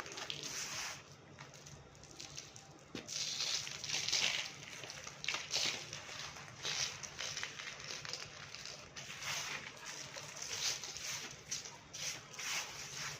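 Dry red clay crumbling and being crushed: a run of gritty crunches and crackles, irregular and coming about every half second to a second, over a faint steady low hum.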